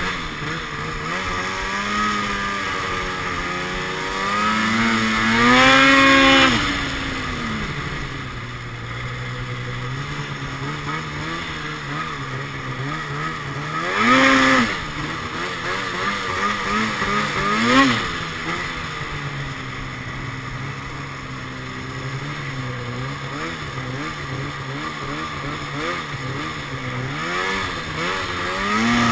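2012 Arctic Cat XF 800 snowmobile's two-stroke twin engine, breathing through a Sno Stuff aftermarket high-performance silencer, running at part throttle while riding. It revs up sharply three times, a longer rise about five seconds in and shorter ones about fourteen and eighteen seconds in.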